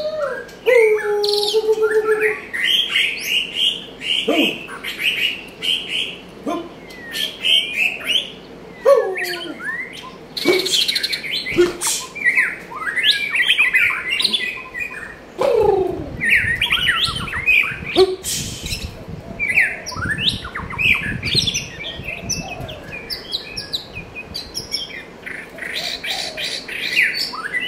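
White-rumped shama singing a long, varied song of rich whistles, chirps and trills, broken by occasional lower whistled notes that slide downward.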